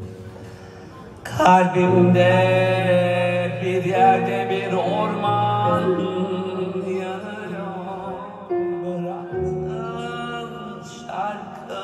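A male singer singing live in long, held notes with a wavering vibrato, over sustained low instrumental backing. The voice comes in about a second in and pauses briefly near the end.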